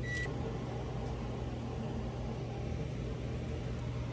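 Steady low background hum, with a short high beep right at the start.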